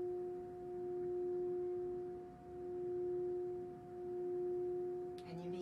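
Metal singing bowl played with a mallet, sounding one steady, pure tone with a fainter overtone above it. The loudness swells and fades slowly, about every second and a half.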